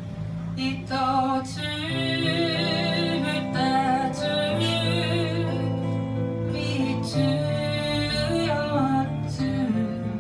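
A woman singing a slow folk ballad, holding long notes with vibrato, accompanied by an acoustic guitar.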